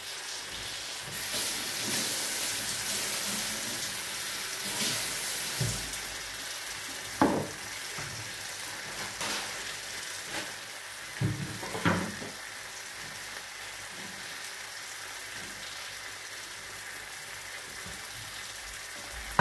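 Lamb jalfrezi sizzling in a frying pan on an electric hob, a steady hiss, with a few short knocks now and then.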